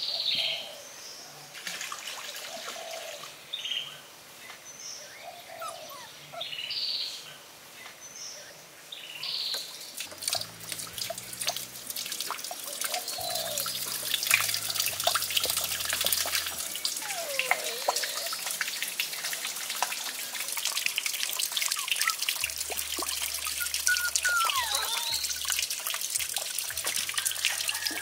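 Water trickling and splashing off small bamboo water wheels turning at the edge of a pool, growing louder and steadier about ten seconds in. Birds call alongside, with short repeated calls in the first half.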